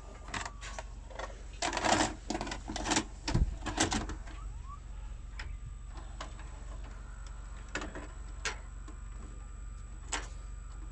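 NEC VH-605 VHS video recorder's cassette-loading mechanism: a run of clicks and clunks as a tape is pushed in and drawn into the deck in the first few seconds, then a few single mechanical clicks, the last about ten seconds in as the play button is pressed.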